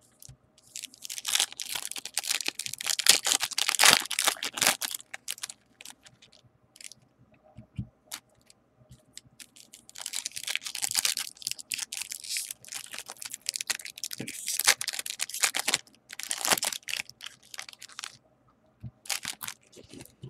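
2017 Bowman Platinum baseball card pack wrappers crinkling and tearing open by hand. The crackling comes in two long stretches, the first about a second in and the second about halfway, with a few short crinkles near the end.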